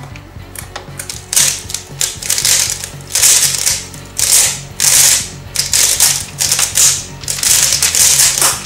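3x3 speedcubes being turned fast by hand: rapid plastic clicking and clacking in quick bursts. The bursts start about a second in and grow louder as the solve gets under way.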